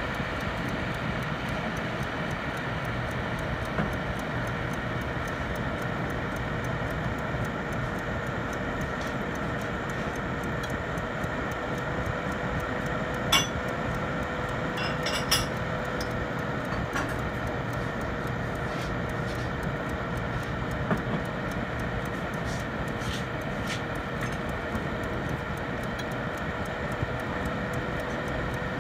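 Steady hum of a running kitchen fan or motor with a constant whine, broken by a few sharp clicks.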